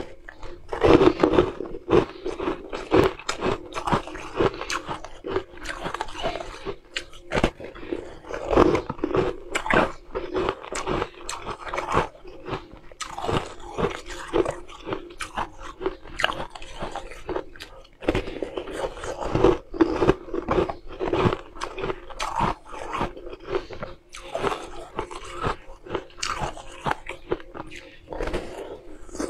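Frosted ice being bitten off and chewed: a near-continuous run of sharp cracks and crunches between the teeth.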